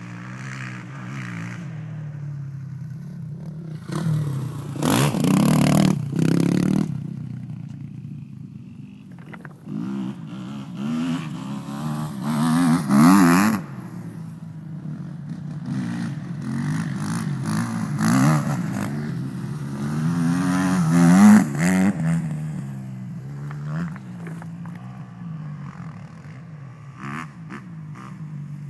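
Four-stroke motocross bikes (Honda CRF450R and Kawasaki KX250Fs) revving in turn, engine pitch climbing and dropping with the throttle. The loudest moments come as bikes pass close, about 5, 13 and 21 seconds in.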